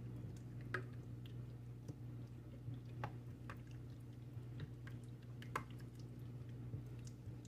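Faint soft squishing of a spatula stirring mayonnaise, sour cream and mustard in a stainless steel bowl, with scattered light taps and scrapes of the utensil on the metal, over a steady low hum.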